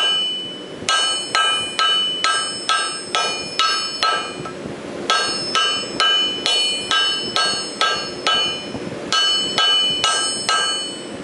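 Hammer striking a hot bundle of steel wire on an anvil during a forge weld, about two to three ringing blows a second in runs with short pauses between them.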